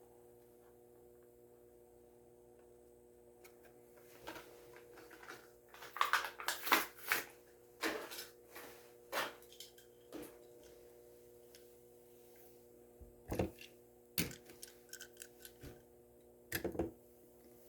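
Die-cast toy car's blister package being opened by hand: scattered crinkles, clicks and tears of plastic and card, busiest about four to ten seconds in and again near the end, over a faint steady hum.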